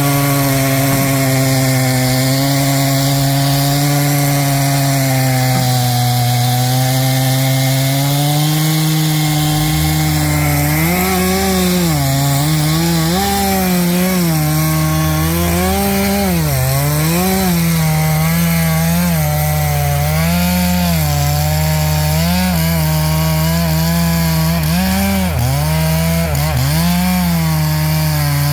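Two-stroke chainsaw running at high revs, cutting wood. From about ten seconds in, its pitch dips and recovers over and over as the chain is loaded in the cut.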